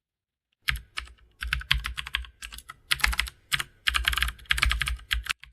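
Computer keyboard typing: a quick, irregular clatter of keystrokes that starts under a second in.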